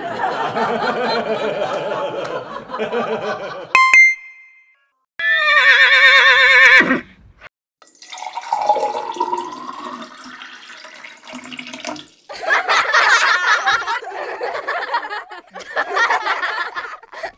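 A run of short, unrelated sound effects played one after another, with a bright bell-like ding about four seconds in and a loud wobbling, warbling tone around six seconds.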